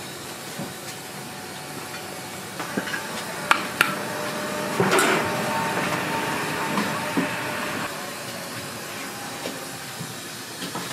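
Large stockpot of pig's feet boiling hard in broth, a steady steaming hiss and bubbling. A louder swell about five seconds in, and two sharp metal clinks of a utensil against the pot just before it.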